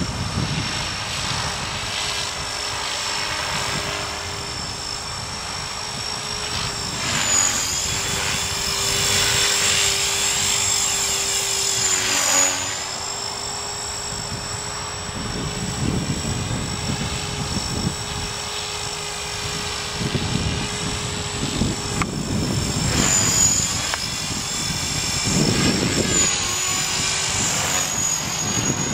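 A 450-size radio-controlled helicopter flying overhead: a steady high-pitched whine from its motor and rotors that dips briefly in pitch a few times as it manoeuvres.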